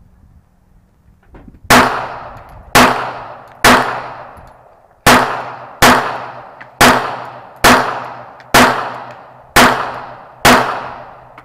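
Ten pistol shots from a Glock handgun, fired at a steady pace of about one a second with one slightly longer pause, each crack followed by a short ringing decay.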